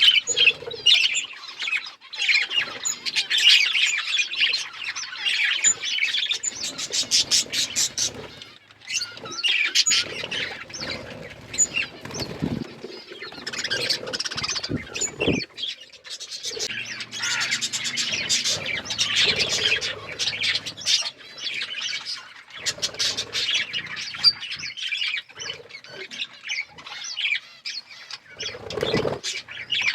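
Pet budgerigars and lovebirds chirping and chattering without a break, a dense mix of high chirps and rapid runs of short clicking notes.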